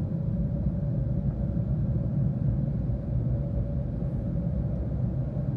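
Automatic car wash machine working over the car, heard from inside the cabin: a steady rumble of the rotating brushes and water on the body, with a faint steady hum from the machine.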